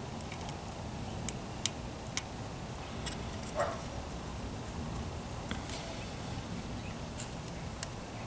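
Scattered sharp clicks and ticks of transistor leads being pushed through and bent against a printed circuit board as it is handled, over a low steady background noise.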